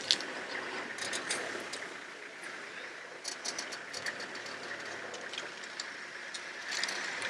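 African elephants tearing up grass with their trunks: irregular clusters of short, crisp ripping and crunching sounds over a steady background hiss.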